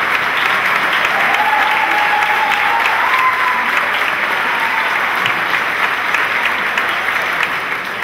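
Audience applauding steadily, with one long held note rising slightly in pitch over it for a few seconds from about a second in.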